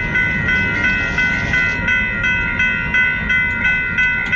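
Railroad crossing bell ringing about three times a second over the low rumble of a freight train rolling past.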